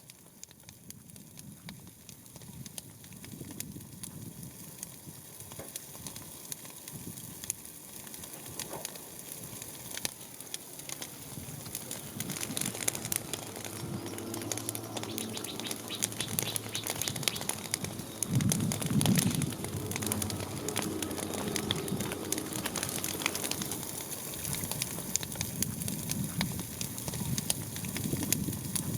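Dense, continuous crackling made of many small pops, growing louder over the first dozen seconds, with a faint low hum in the middle stretch.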